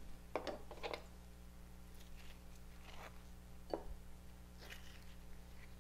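Faint scrapes and soft taps, about six in all, of a knife scoring a halved avocado's flesh in its skin, over a steady low hum.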